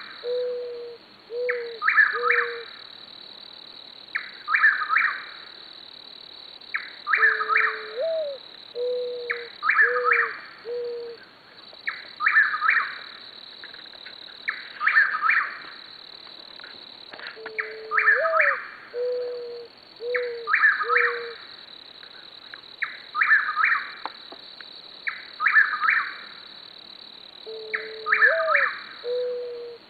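A chuck-will's-widow sings its short three-part song over and over, about every two and a half seconds. A mourning dove coos three times, each a low rising-and-falling coo followed by three shorter coos. Crickets chirp in a steady high trill underneath.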